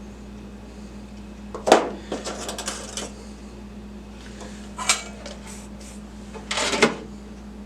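Knocks and rattles of small tools and parts being handled on a workbench, in three short clusters, over a steady low hum.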